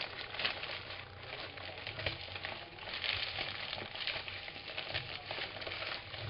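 Clear plastic packaging crinkling and rustling as hands unwrap an item from it: a dense, continuous crackle with louder spells.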